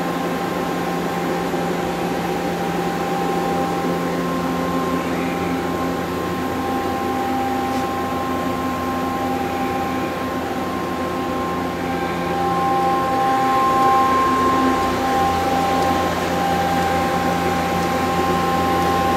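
Steady mechanical hum of a powered-up Hitachi Seiki HITEC-TURN 25G CNC turning center, with a couple of steady whining tones over it. It grows a little louder about twelve seconds in.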